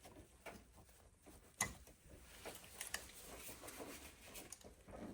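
Faint handling noises with scattered small clicks and one sharper click about one and a half seconds in, from wire connectors and small parts being handled while they are refitted to a water heater's control board.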